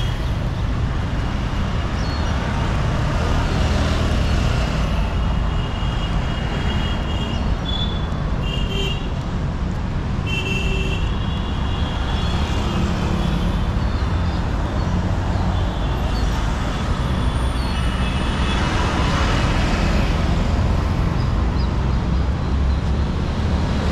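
Steady street traffic, vehicles rumbling past, with brief high-pitched tones now and then.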